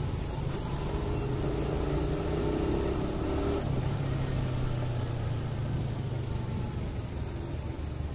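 Motorcycle engine running steadily under way, with the hum of surrounding traffic engines. About three and a half seconds in, a higher engine note drops away and the low note grows stronger.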